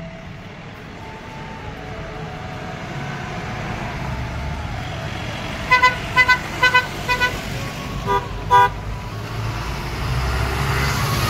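Truck engines rumbling, growing louder as a line of goods trucks approaches and passes. About halfway through, a quick run of short horn toots, then two more shortly after.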